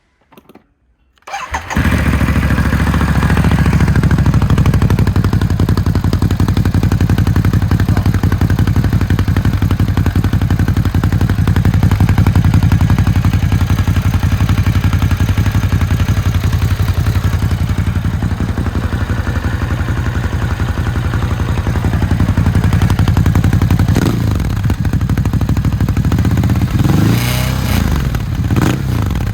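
Ducati Hypermotard 950 SP's 937 cc Testastretta L-twin started and idling through Termignoni silencers, with the catalytic converter still fitted and no remap: after a brief crank it catches about a second and a half in and idles steadily with a fast, even pulse. Near the end the throttle is blipped a few times, the revs rising and falling.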